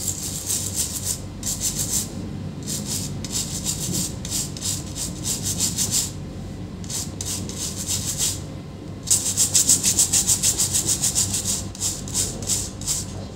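A brush scrubbing an SSD circuit board and its controller chip clean, in rapid back-and-forth strokes. The strokes come in several runs with short pauses, and are loudest and quickest from about nine seconds in.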